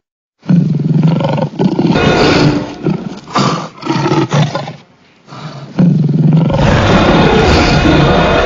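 Allosaurus roar sound effect: a run of loud roars and growls, a brief lull about five seconds in, then one long drawn-out roar.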